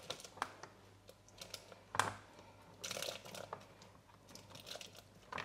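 Steamed asparagus and carrot pieces tipped from a plastic Varoma steaming tray into a Thermomix bowl, with scattered clicks and scrapes of a spatula pushing them over the tray's rim. A sharper knock comes about two seconds in.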